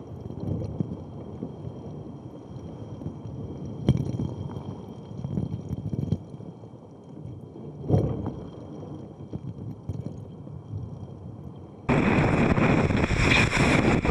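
Water washing over the deck of a Volvo Open 70 racing yacht, heard as a muffled rumble with two heavy thumps, about four and eight seconds in. Near the end it changes suddenly to loud rushing wind and spray from the boat's wake.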